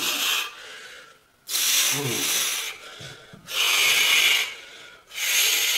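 A man breathing hard through the strain of flexing: four forceful hissing exhalations about every second and a half, one of them starting with a short grunt.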